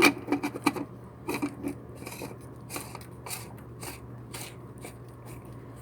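Irregular clicks, light knocks and scraping of hard parts and tools being handled, thinning out after about four seconds, over a steady low hum.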